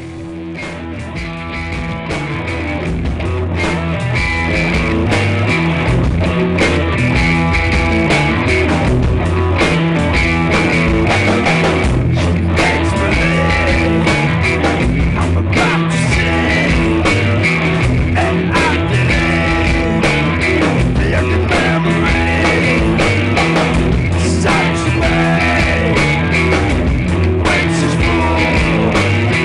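Rock band music with guitar and steady drums, fading in over the first few seconds and then playing at full level.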